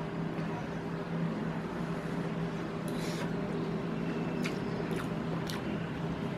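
A metal spoon scraping and clicking against a plastic meal tray a few times, mostly in the second half, over a steady low hum.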